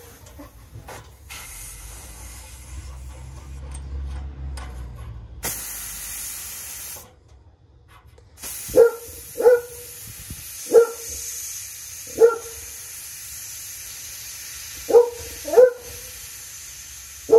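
Leftover refrigerant hissing out of the air conditioner's copper line as the remaining pressure is let out, starting about five seconds in, stopping briefly, then hissing steadily again. A dog barks about six times over it from about halfway through, the loudest sounds.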